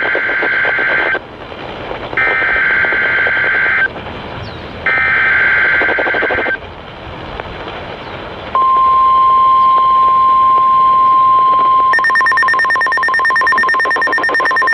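NOAA Weather Radio alert tones: three bursts of SAME digital header data, each a harsh warbling screech of about a second and a half with short gaps between, then the steady 1050 Hz warning alarm tone starting a little past halfway. Near the end a second, buzzing higher tone joins the alarm tone.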